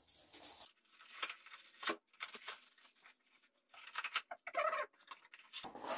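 Gift wrapping paper crackling and tearing in quick irregular snaps as a present is unwrapped by hand.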